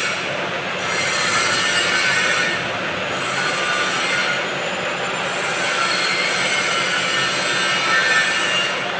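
Lathe running while its cutting tool scrapes along a turning shaft: a steady hiss with a low hum underneath, swelling and easing every second or two.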